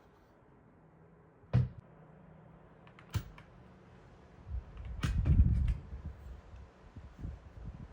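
Unboxing handling sounds: a single sharp knock about a second and a half in, a click near three seconds, then a busier spell of several clicks over low thumps and rustling around five seconds.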